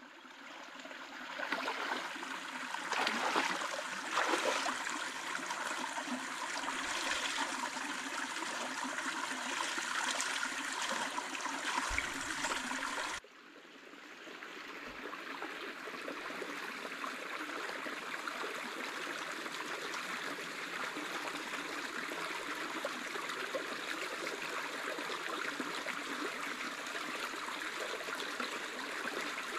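Shallow rocky forest stream running with a steady rush of water, with louder uneven splashes in the first few seconds. About 13 seconds in the sound drops away suddenly, then builds back to the same steady rush.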